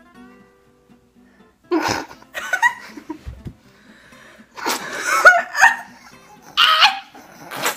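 Girls laughing in several bursts about two, five and seven seconds in, one of them trying to hold back the laughter through a mouthful of water.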